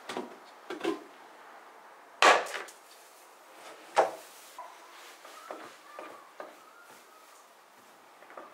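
Plastic paint bucket lid pried open with several sharp snaps and knocks, the loudest about two seconds in, then softer taps and scraping as a wooden stick stirs the diatomaceous earth paint in the bucket.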